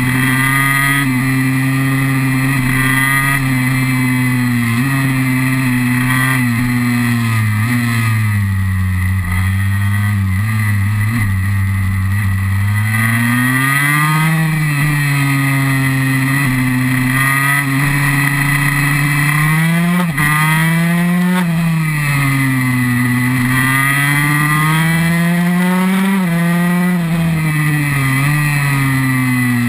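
KTM 144 SX two-stroke single-cylinder engine heard from a camera mounted on the bike, revs rising and falling over and over as it accelerates out of corners and rolls off into them.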